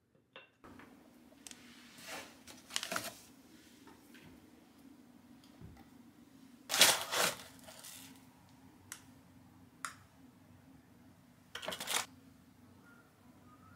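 Kitchen handling sounds: scattered light clicks and knocks from the aluminium parts of a stovetop moka pot and a wooden cabinet door, over a faint steady hum. The loudest is a double knock about seven seconds in, and another sharp clatter comes near the end.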